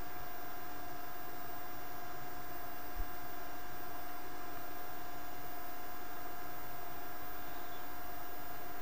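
Steady electrical hum at several pitches over a faint hiss, with one brief low thump about three seconds in.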